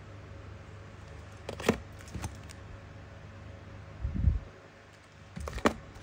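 Boxed Zippo lighters being handled: sharp clicks and clacks of the boxes as they are picked up and shifted, one about a second and a half in and another near two seconds, a dull low thump around four seconds, and a cluster of clicks near the end.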